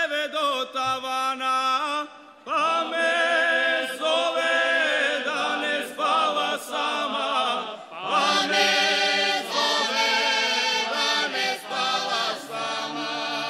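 Croatian folklore ensemble singing a folk song unaccompanied in chorus, several voices together in long held phrases, with short breaks about two and eight seconds in.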